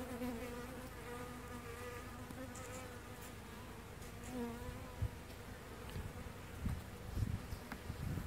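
A honeybee colony buzzing over the open frames of a hive: a steady, slightly wavering hum. A few low bumps come in the second half.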